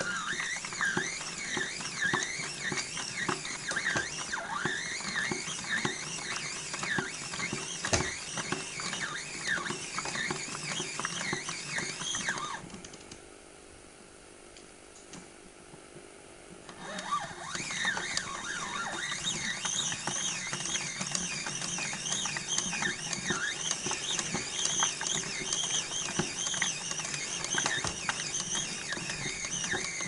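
Casdon toy Hoover Electron 1100 washing machine turning its drum, its suspension squeaking over and over in quick rising and falling squeals over a steady hum. About twelve seconds in the squeaking stops for about four seconds, then starts again.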